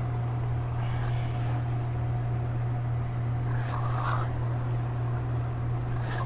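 A steady low mechanical hum, with a short burst of noise about four seconds in.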